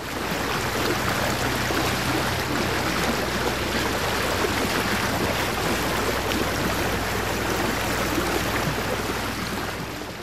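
Steady rushing of water along a moving canal boat, with a low, even engine hum underneath. It fades away near the end.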